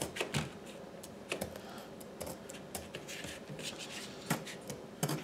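A metal fork pricking holes in raw potatoes: a string of short, sharp clicks and taps at uneven intervals as the tines stab through the skin.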